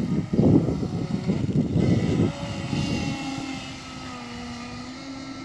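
High-speed electric RC boat running flat out, its 1600KV brushless motor on a 6S battery giving a steady whine. The whine drops a little in pitch and fades as the boat speeds away. A loud, uneven rumble covers the first two seconds.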